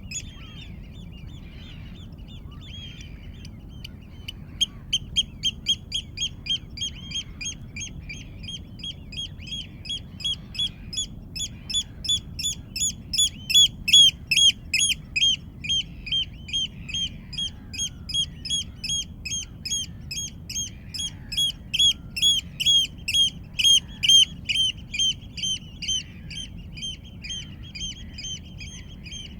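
A bird calling a long series of short, evenly repeated notes, about three a second, that swells louder and then fades, over a steady low background hiss, with fainter chirps of other birds.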